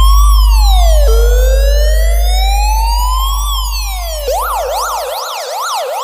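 Police siren sound effect over a deep bass tone. The siren first wails, rising slowly and dropping quickly twice; about four seconds in it switches to a fast yelp. The bass fades and cuts out about five seconds in.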